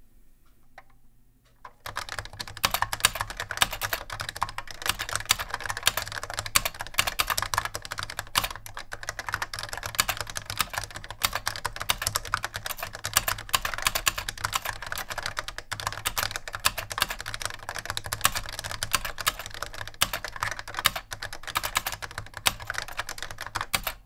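Typing on a Robotron K7631 keyboard with Robotron Hall-effect linear switches and thick keycaps: a dense, fast run of clacky keystrokes that starts about two seconds in.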